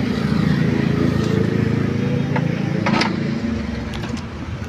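Motorcycle engine running close by, its pitch rising gently, then easing off after about three seconds, with a few light clicks near the middle.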